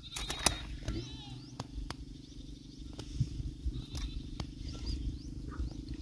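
Short, sharp clicks and ticks of a fish being worked free of a nylon cast net by hand, with a cluster of louder clicks about half a second in. Under them runs a steady low rumble, with faint, short, high chirps here and there.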